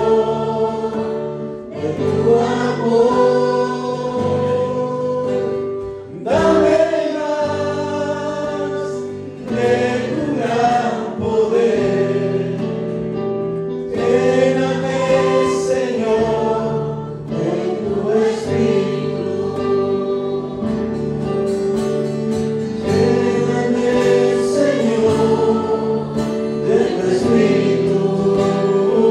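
Choir singing a Spanish-language Christian worship song over instrumental accompaniment with long held notes.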